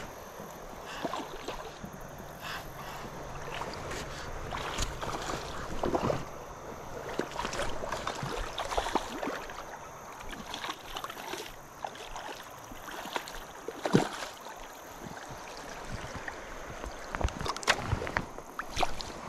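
A hooked smallmouth bass fought in shallow river water and landed by hand: scattered splashes and knocks over the steady wash of the river. The loudest comes about 14 seconds in, and a cluster of splashes comes near the end as the fish is lifted.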